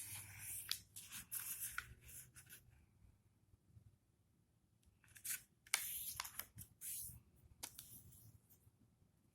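Square of origami paper rustling and crinkling as it is folded corner to corner and creased, in two spells of handling with a short quiet pause between them.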